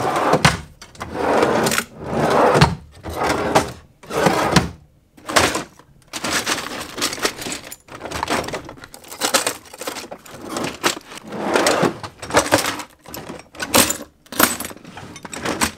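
Wide cabinet drawers sliding open and shut, and loose stained glass pieces clinking and rattling in their trays as they are rummaged through. The first half is mostly long sliding swells; the second half is mostly quick clinks and rattles.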